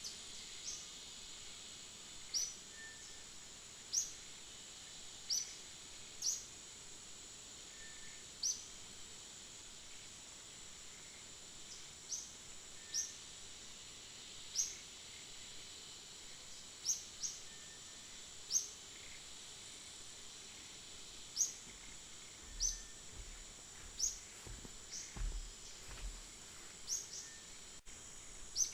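Outdoor tree-canopy ambience: a steady high insect drone with repeated short, high, upward-sweeping bird chirps at irregular intervals, and a few faint low rumbles about three-quarters of the way through.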